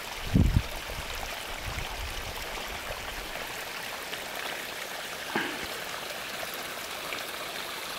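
Steady rushing of running water, like a stream, with a short low bump about half a second in.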